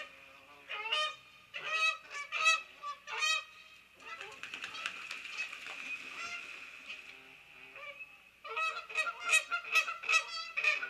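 Geese honking in a noisy squabble. Bursts of repeated honks give way in the middle to a few seconds of rougher, continuous calling, then a rapid run of honks near the end.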